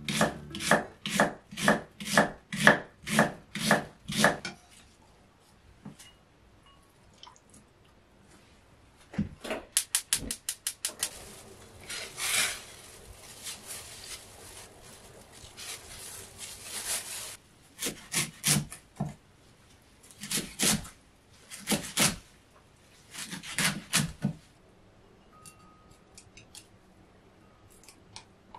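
Food being prepared on a wooden cutting board: a run of about a dozen even knife strokes, a quick flurry of strokes, then several seconds of scraping and rubbing, and a few more short clusters of strokes.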